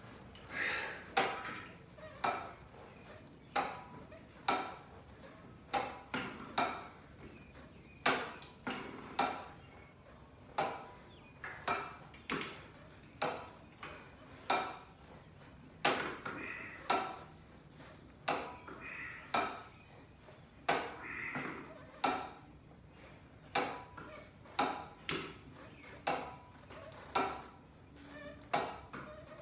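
Metal leg curl attachment on a weight bench, loaded with a weight plate, clanking with each rep of single-leg lying leg curls. The knocks are sharp and ring briefly. They come about once a second, sometimes two close together.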